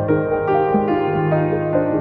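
Instrumental background music, slow and gentle, with held notes changing about every half second.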